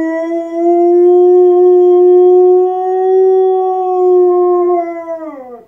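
Rottweiler howling: one long, steady howl that slides down in pitch and trails off near the end.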